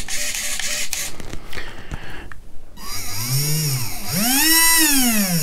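Small electric RC car motor spinning up and back down twice on the throttle, each time a whine rising then falling in pitch, the second run longer and higher. This is a throttle test of the motor through a freshly bound receiver and ESC. A short buzzing noise comes first, about a second long.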